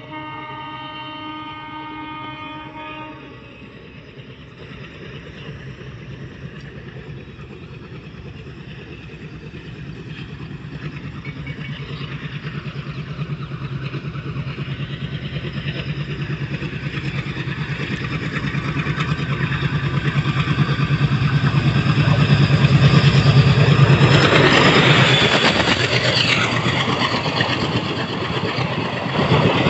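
A train horn sounds for about three seconds. Then an ALCO-engined WDP3A diesel locomotive chugs at full power, its steady throbbing growing louder as it approaches and passes, with the pitch dropping as it goes by. Passenger coaches rumble past near the end.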